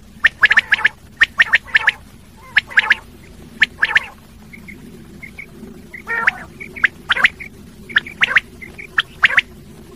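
Common quail calling over and over: clusters of sharp, quick notes, the male's 'wet-my-lips' song, with a short lull near the middle.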